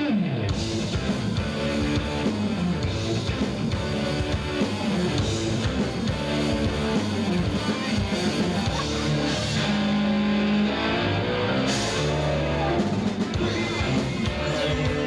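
Live rock band playing: electric guitars, bass and drum kit, heard from among the audience.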